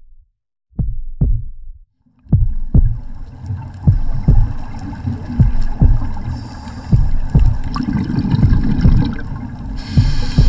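Deep, heartbeat-like bass thumps. A few single thumps come first, then from about two seconds in a steady low rumble carries a thump roughly every half second. A short hiss joins near the end.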